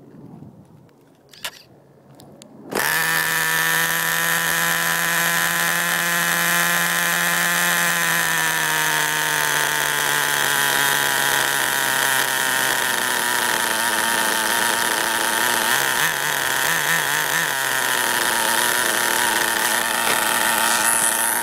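Small nitro (glow-fuel) engine of a Redcat Volcano S30 RC truck catching suddenly about three seconds in, then idling steadily. Its pitch eases down a little a few seconds after it starts.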